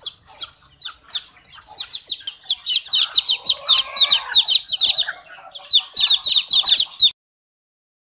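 Chicks peeping in quick, high, falling chirps, growing busier after a couple of seconds, with lower clucking from a hen under them in the middle; it all cuts off suddenly near the end.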